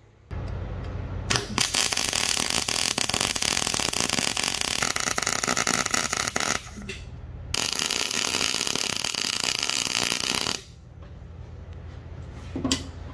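MIG welder's arc crackling and sputtering as it lays two beads on steel brackets: one of about five seconds, then, after a brief pause, one of about three seconds. A steady low hum runs underneath throughout.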